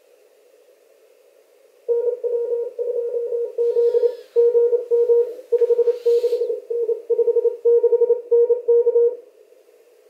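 Morse code (CW) from a SunSDR2 Pro amateur radio transceiver: a tone of about 500 Hz keyed in dots and dashes for about seven seconds, starting about two seconds in. It sits over a narrow band of receiver hiss heard through a CW filter.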